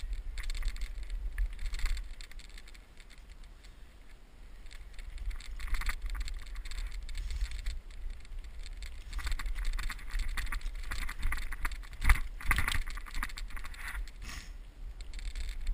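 Alloy-framed Mongoose XR-350 mountain bike rolling fast along a rough dirt trail, its tyres crunching and its frame and chain rattling over bumps, over a steady low rumble. A sharp knock is loudest about twelve seconds in.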